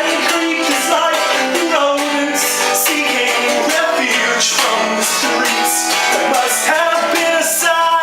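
Live song with guitar playing and a melody carried over it.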